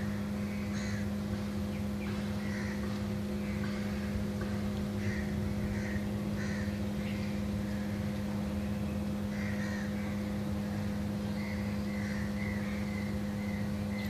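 Birds calling in many short, irregular calls over a steady low hum that holds one unchanging pitch throughout.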